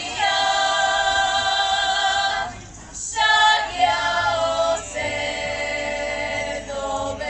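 Slovak women's folk choir singing unaccompanied, in long held phrases with short breaks between them.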